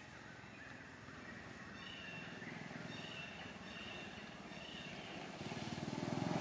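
A string of short, high-pitched squeaking calls from a young long-tailed macaque, about two a second. Near the end a low engine sound grows louder.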